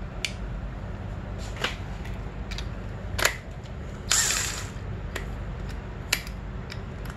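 Sharp metal clicks and knocks as a dirt bike's front brake caliper and its pins are handled, with a brief run of a cordless impact driver about four seconds in as it backs out a caliper pin.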